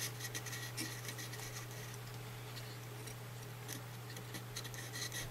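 Faint scratching of a soldering iron tip and copper desoldering braid on circuit-board pads as old solder is wicked away, a few soft scrapes and ticks over a steady low hum.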